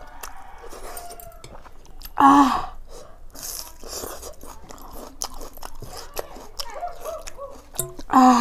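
Close-up eating sounds of watery fermented rice (panta bhat) being eaten by hand: chewing, lip smacks and airy hisses of breath. There are two short, loud vocal exclamations, about two seconds in and again near the end, which are reactions to the food being very spicy.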